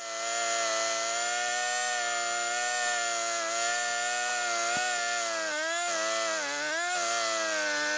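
Gas chainsaw running at steady high revs while trimming the end of a sawn timber post. Its pitch sags and recovers several times about two-thirds of the way through as it loads up in the wood.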